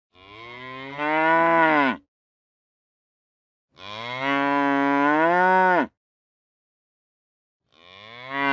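A heifer mooing three times, each moo about two seconds long with silent gaps between; each starts softer and swells louder partway through. The third moo begins near the end.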